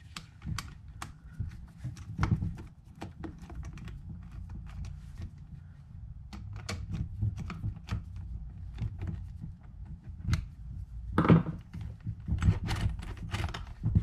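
Screwdriver driving the mounting screws of a privacy door knob, with irregular small metallic clicks and ticks from the tool and knob hardware, and a louder knock about eleven seconds in.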